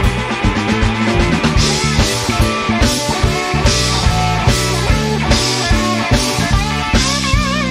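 Live blues band playing: a lead electric guitar solo on a semi-hollow electric guitar over bass and drums, the cymbal struck about every second. Near the end the guitar holds a note with a wide, wavering vibrato.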